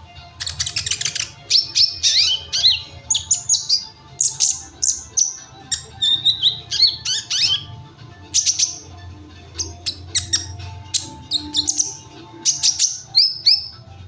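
Kolibri ninja sunbird singing: fast runs of sharp, high chirps and quick falling whistled notes, in close bursts with short gaps, over a low steady hum.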